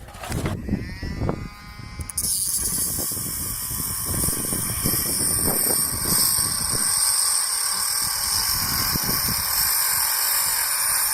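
A handheld power tool running steadily for about nine seconds, working a mounting bolt loose from an RV battery-slide tray. It starts about two seconds in, after a couple of knocks and a brief metallic ring.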